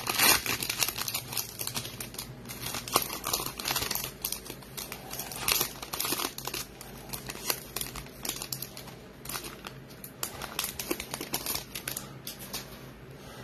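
Foil wrappers of 2020 Panini Absolute football card packs crinkling and tearing as they are ripped open by hand, in irregular crackles.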